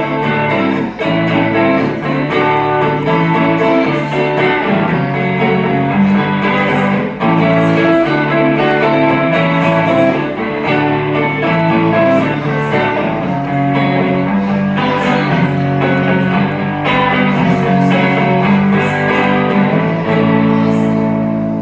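Live band's guitar-led instrumental outro, the guitars playing a run of changing chords and notes. Near the end the band lands on one chord and lets it ring.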